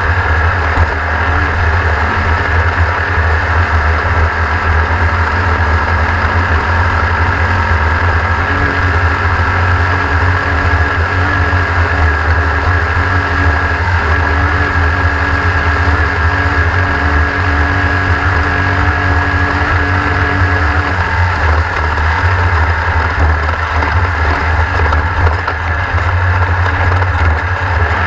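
Racing vehicle's engine running at a steady, high throttle, heard onboard, with heavy wind rumble on the microphone.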